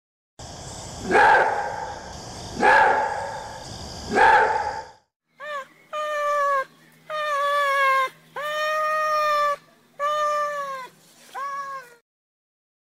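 Maned wolf calling: three loud barks about a second and a half apart, then a string of drawn-out, whining calls.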